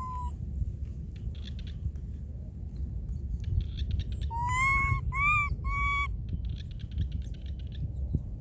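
A baby macaque giving three short, clear coo calls in quick succession, about four to six seconds in, each rising slightly in pitch and then falling. A steady low rumble runs underneath.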